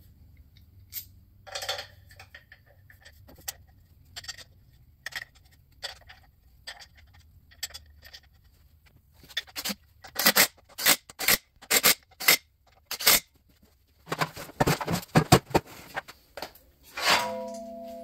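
Cordless power driver run in short bursts, tightening the tail-housing bolts on a 4L60E transmission, after a stretch of small clicks and clinks of bolts and tools being handled. Near the end there is a metal clank with a brief ring from the aluminium bell housing being picked up.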